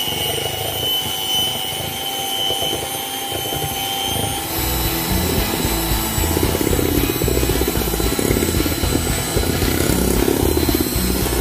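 Electric hand mixer running steadily, its beaters whisking eggs and sugar in a glass bowl until fluffy. About four and a half seconds in, its high whine drops away and a lower whirr carries on.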